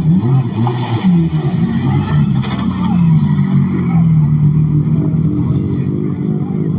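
Rally car engine running and being blipped, its pitch rising and falling.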